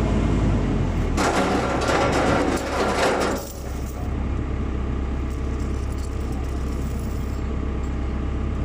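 Backhoe's diesel engine running steadily, with a loud rushing, rattling pour of a bucketload of earth being dumped for about two seconds, starting about a second in.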